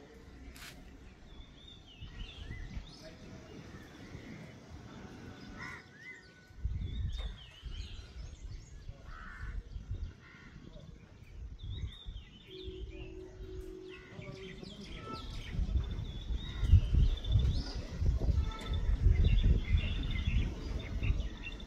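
Small birds chirping and calling in short rising and falling notes, over wind rumbling on the microphone in gusts that grow louder in the second half.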